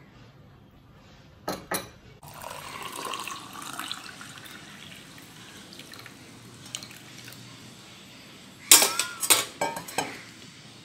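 Two light clicks, then warm water poured into a glass for about two seconds. Near the end, a quick run of sharp clinks of a spoon and glassware.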